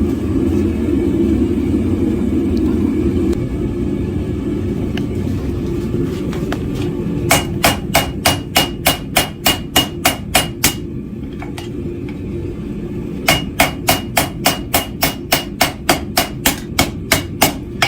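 Hand hammer striking a hot forge-weld billet on an anvil in two quick runs of blows, about four a second, with a faint ring from the anvil, over a steady low rush from the forge. This is a welding pass on a zero-atmosphere weld, one of three passes that set, firm up and blend the weld.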